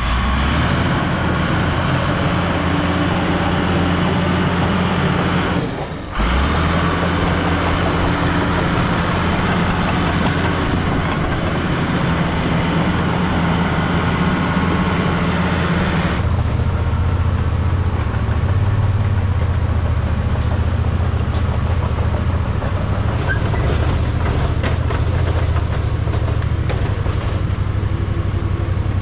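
Crawler bulldozer's diesel engine running steadily, with a thin high whine over it. The sound drops out briefly about six seconds in, and about sixteen seconds in it changes to a deeper run without the whine.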